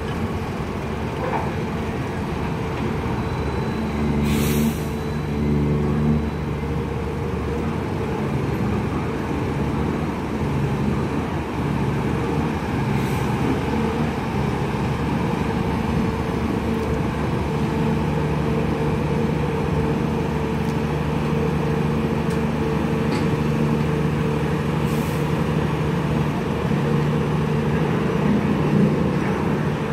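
Heavy diesel engines of a container-lifting machine and a truck running, the engine note stepping up and down as the container is hoisted off the trailer. Short air-brake hisses about four seconds in and again near twenty-five seconds.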